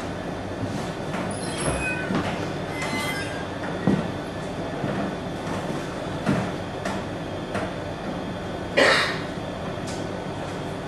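A steady rumble with thin high squeals about two seconds in and several sharp knocks, the loudest near the end, much like a train running on rails.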